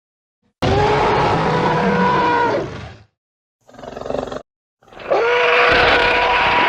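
Cartoon airworm monster roars, three of them with silent gaps between: a long roar, a short one, and another long one near the end. Each holds a steady pitch over a rough growl.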